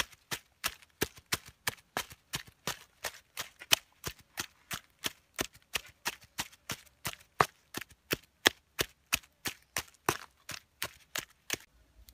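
Wooden pestle pounding chilli sauce in a coconut-shell bowl: a steady run of sharp knocks, about three a second, stopping near the end.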